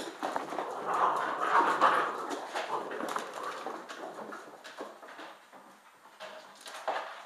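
A puppy close by, moving about and making small sounds. These are busiest in the first three seconds, then grow quieter, with scattered light clicks.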